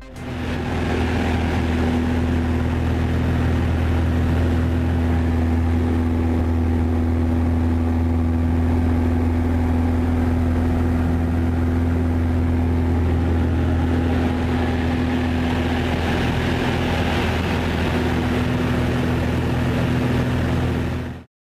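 Single-engine propeller aerobatic aircraft's engine and propeller running at steady power: a deep, even drone with a higher hum over it. It cuts off suddenly near the end.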